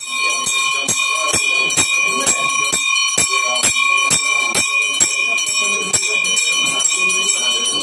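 Hindu temple puja bells ringing, struck in a steady beat about twice a second with the ringing tones held between strikes; the beat blurs after about six seconds.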